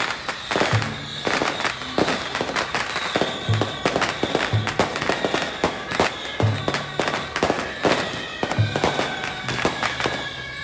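Firecrackers crackling and popping rapidly, over a marching brass band playing, with short low brass notes now and then and held higher notes in the second half.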